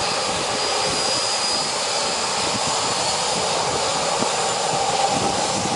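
Boeing 737 jet engines whining steadily at low power as the airliner taxis past.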